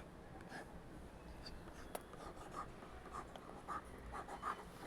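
Someone writing by hand, a series of faint, short scratchy strokes with a small click about two seconds in.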